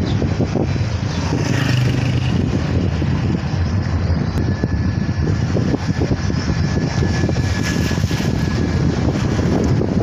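Car driving along a street, heard from inside the car: a steady low rumble of road and engine noise with some wind buffeting.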